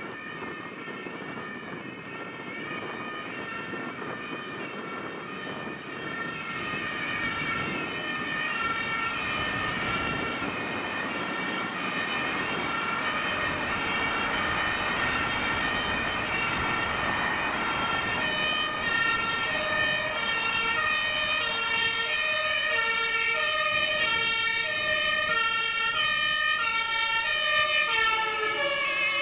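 Two German two-tone emergency sirens (Martinshorn) on a Mercedes-Benz 1224 LF 16/12 fire engine and a VW T5 crew van, one of them a compressed-air horn, each alternating high and low out of step with the other over city traffic noise. They grow steadily louder as the vehicles approach, and a second, lower two-tone stands out clearly from about two-thirds of the way in.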